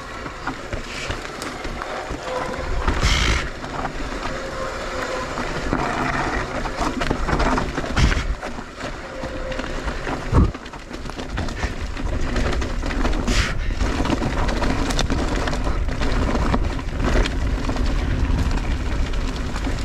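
Mondraker Crafty Carbon R electric mountain bike rolling down a dirt trail: steady tyre noise and the bike rattling over rough ground, with two hard thumps about eight and ten seconds in.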